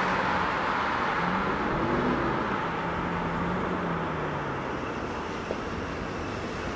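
Road traffic: cars driving past on the road, a steady rush of tyres and engines that eases off over the last few seconds.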